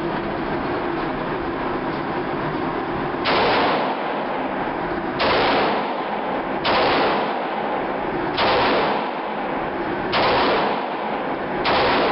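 Six gunshots about a second and a half apart over a steady rushing background. The blasts are heavily compressed by the recording, each a short flat-topped burst rather than a sharp crack.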